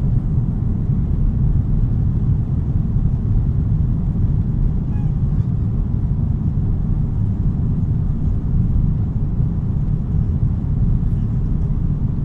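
Steady low rumble of an airliner heard from inside the passenger cabin: the jet engines and the aircraft rolling on the ground early in a takeoff.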